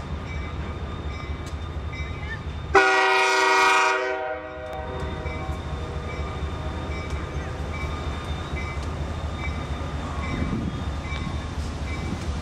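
Norfolk Southern diesel locomotive sounding its multi-note air horn in one blast of under two seconds, about three seconds in, as the coal train approaches. A steady low rumble of wind on the microphone and the oncoming train runs underneath.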